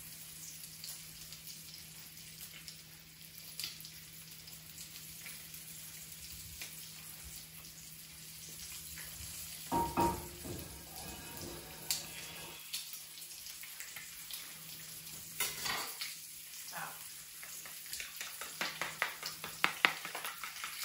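Butter sizzling in a hot frying pan, a steady high hiss. A clatter comes about halfway through, and near the end there is a run of quick ticks as eggs are stirred in a plastic bowl.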